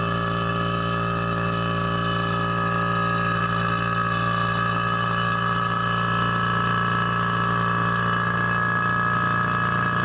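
Electric vacuum pump running steadily with a constant hum, pulling a vacuum on a chamber holding a glass of water; one of its tones sinks slightly in the second half.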